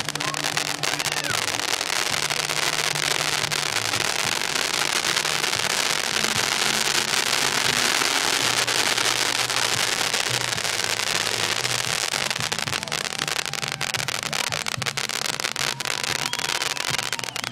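Rift Zone super cone firework fountain spraying sparks with a steady hissing crackle, fullest around the middle.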